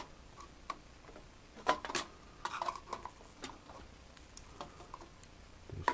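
Diagonal cutters working the small tabs of a steel shield cover on a circuit board, bending them free: irregular metal clicks and short scrapes, bunched together around the middle.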